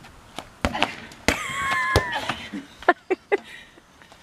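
Tetherball being punched back and forth around its pole: several sharp slaps of hands on the ball, the loudest two in the middle. A brief high, gliding whistle-like call sounds between them.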